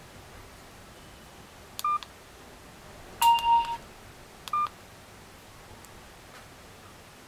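Electronic key-tone beeps from a touchscreen GSM PDA phone as a stylus taps menu items on its screen. There are three: a short beep, a louder beep of about half a second, then another short beep.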